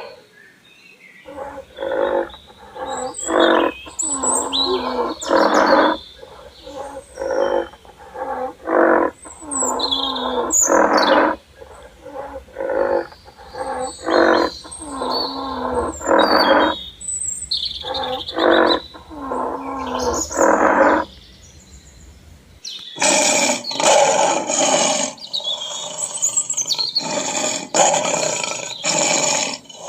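A wild animal calling in a long series of short, pitched calls, one every second or so, with birds chirping faintly above. About 23 seconds in it changes abruptly to a denser, unbroken animal calling.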